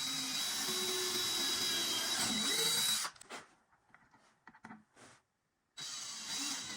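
Power drill driving screws to fasten a wooden shelf board, running for about three seconds with a steady high whine. It stops, a few light knocks follow, and it starts again near the end.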